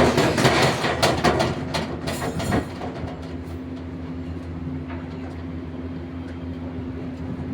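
A machine running with a steady low hum. Over the first two and a half seconds a loud burst of clattering and scraping rides over it.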